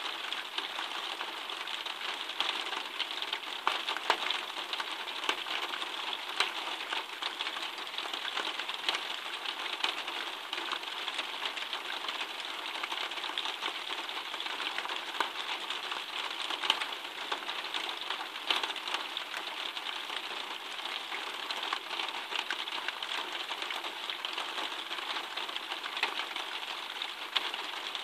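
Steady rain falling: an even hiss thick with countless sharp ticks of drops striking close surfaces.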